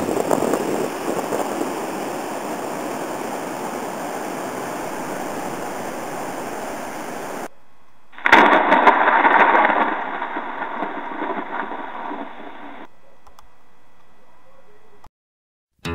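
A steady rushing noise of wind and surf that cuts off about seven and a half seconds in. Then a loud, muffled, gravelly pirate-style "Arrrr" growl, fading away over a few seconds.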